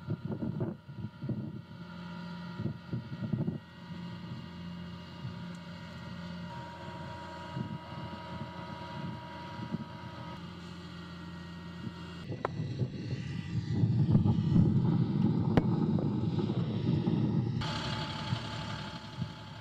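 Diesel engine of an M142 HIMARS launcher truck running at idle with a steady hum, turning louder and rougher about twelve seconds in.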